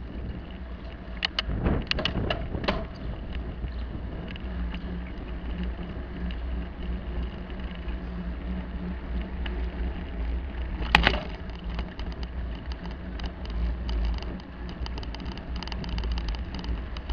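Bicycle rolling over concrete paving blocks, picked up through a handlebar-mounted camera: a steady low rumble with rattles and knocks, a cluster of them a couple of seconds in and one sharp knock about eleven seconds in.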